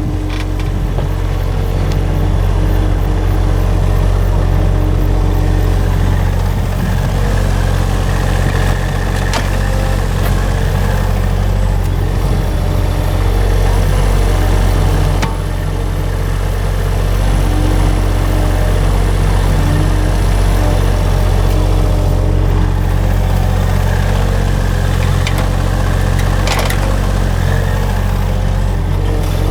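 Small work-vehicle engine running steadily at a constant speed, with a few short knocks.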